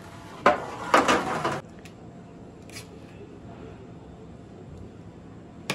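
Kitchen handling noise on a countertop: a metal tray and dishes being moved, with a loud scraping clatter about half a second in that lasts about a second. A faint tap follows, then a sharp knock near the end.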